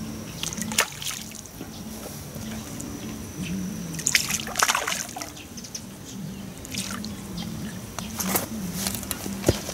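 Hooked fish splashing at the water surface as it is played on a fishing pole: irregular slaps and splashes, loudest about four seconds in and again near the end.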